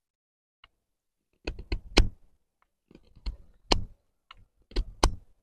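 A fixed-blade bushcraft knife carving a wooden stick under hard pressure, the blade biting in with sharp crackling snaps of wood. Three quick strokes of a few cracks each, spaced about a second and a half apart.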